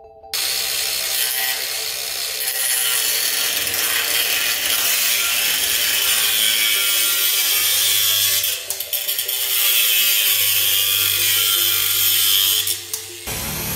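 Cordless angle grinder with its disc biting into steel: a loud, steady, high grinding that starts about a third of a second in, eases off briefly past the middle and stops shortly before the end.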